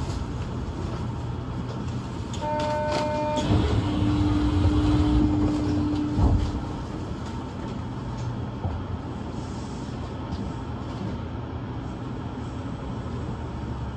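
Osaka Metro New Tram rubber-tyred automated guideway train at a station. A short two-note tone sounds about two and a half seconds in, followed by a few seconds of a steady lower tone over louder rumbling with a single knock. Then comes the train's steady running noise.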